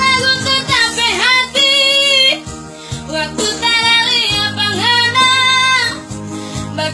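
A child singing a high melody over instrumental backing, in two sung phrases with a short break between them, the held notes wavering in vibrato.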